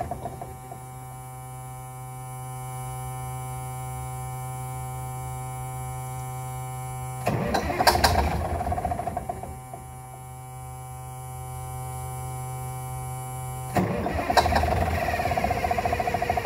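Cummins 250 diesel of a 1970 XM818 army truck firing in rough bursts, about seven seconds in and again near the end, as it tries to start. In between is a steady buzzing hum.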